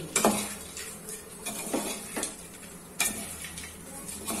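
A spatula stirs a dry, crumbly mix of crushed fried pappadam in an aluminium pot, scraping and knocking against the pot's side. Several sharp knocks come at irregular intervals.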